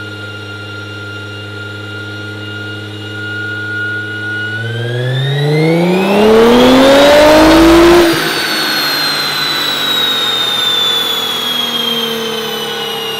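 Nissan GT-R's twin-turbo 3.8-litre V6 on a chassis dyno holds a steady speed, then runs a full-throttle pull that climbs in pitch and grows loud. The pull cuts off abruptly, and the engine and rollers wind down with a falling whine.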